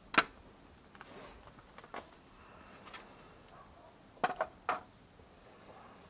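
Sharp clicks and knocks of a motorcycle's side cover and its fastenings being worked loose and lifted off by hand. The loudest click comes just after the start, another about two seconds in, and a quick cluster of three knocks comes about four seconds in.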